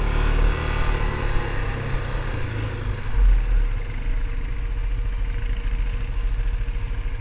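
Yamaha ATV engine running steadily while riding along a gravel trail, with a continuous low rumble and a brief louder swell about three seconds in.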